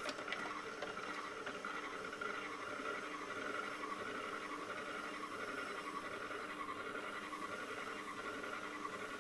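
Potter's wheel running while a trimming tool shaves leather-hard clay from a bird feeder roof: a steady whirring scrape with a slight regular pulse.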